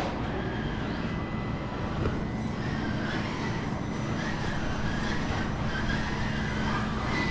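Small electric motors and geared drivetrains of 1/18-scale Traxxas TRX-4M RC crawlers whining steadily as they creep over the rocks, with a single knock about two seconds in.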